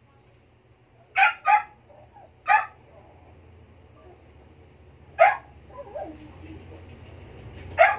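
A dog barking: five short, sharp barks, a quick pair about a second in, then single barks spaced a few seconds apart.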